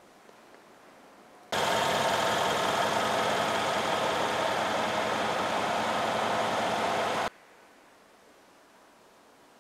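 Brabus 850 S-Class's 6-litre twin-turbo V8 idling steadily, cutting in abruptly about a second and a half in and cutting out abruptly about seven seconds in, with faint hiss either side.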